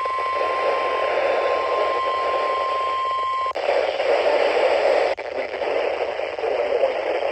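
NOAA Weather Radio broadcast under heavy static: a steady 1050 Hz warning alarm tone of the weekly test sounds through the hiss and cuts off abruptly about three and a half seconds in, leaving only loud static with a brief dropout.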